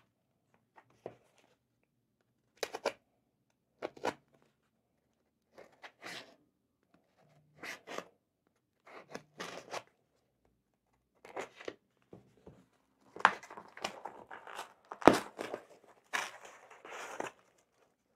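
Folding pocket knife cutting through the packing tape and cardboard of a small parcel: short scraping cuts a second or two apart, then a quicker, louder run of slicing and tearing near the end with one sharp knock.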